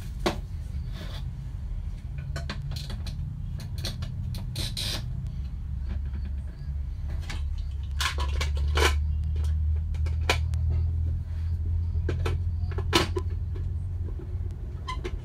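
Plastic parts of a Braun citrus juicer clicking and knocking as the juice bowl and reamer cone are fitted onto the motor base. A steady low hum runs underneath.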